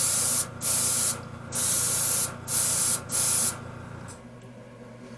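Airbrush spraying mica pearl-powder paint in about five short hissing bursts, each under a second, which stop about three and a half seconds in. A low steady hum underneath cuts off a little later.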